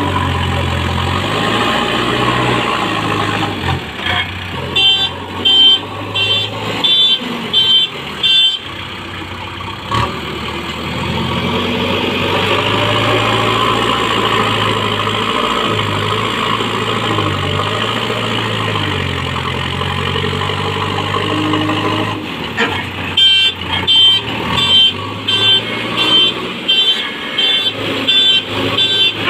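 JCB 3DX backhoe loader's diesel engine running under working load, its pitch rising and falling with the throttle. Two runs of short repeated beeps, roughly two a second, come a few seconds in and again near the end.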